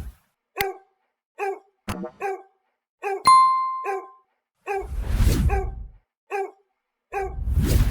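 A dog barking repeatedly in short barks, with a single bell-like ding about three seconds in that rings out for about a second, and low rumbling swells near the middle and end.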